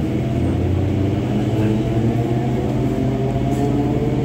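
A steady low rumble with a droning hum of several tones over it.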